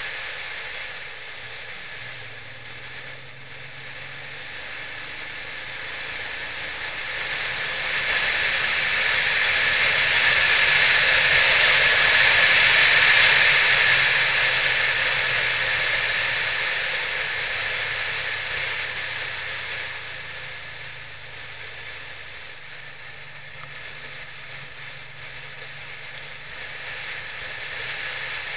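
Wind rushing over the microphone of a camera mounted on a moving vehicle, swelling to its loudest about halfway through and then easing off. A faint low engine hum runs underneath.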